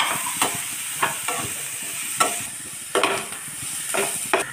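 Chopped onions sizzling in hot oil in a frying pan, with a metal slotted spoon scraping and knocking against the pan every second or so as they are stirred and sautéed until soft.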